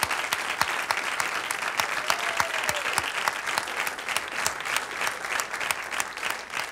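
Large audience applauding: many people clapping together in steady, dense applause.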